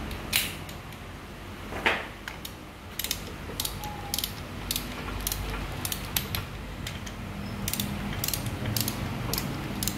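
Ratchet head of a torque wrench clicking as it is swung back and forth, running down the cylinder head bolts on a Honda CRF150L engine, with a couple of louder knocks in the first two seconds. The clicks come about two a second.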